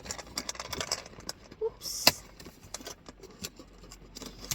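Small clicks and taps of a toy gumball machine being handled, with one sharp click about two seconds in.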